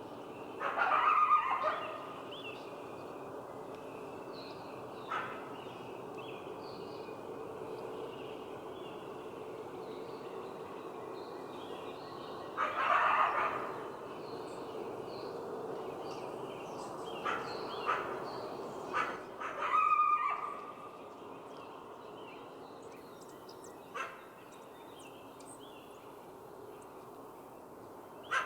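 Coyotes barking and yipping in scattered short bouts. The loudest come near the start, around the middle and about two-thirds of the way through, with single short yelps between them, over a steady low background noise.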